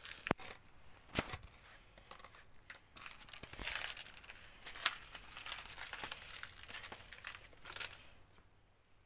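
Irregular crunching and crackling of footsteps on a loose pebble path, with a few sharper clicks and a denser stretch of crunching in the middle, fading off near the end.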